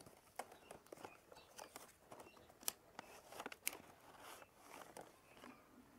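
Faint handling of a cardboard box: the inner box is slid out of its outer sleeve, with scattered small clicks, scrapes and rustles of card.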